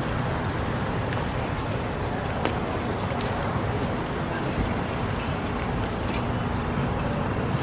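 Steady vehicle rumble with a low hum, and a few faint clicks over it.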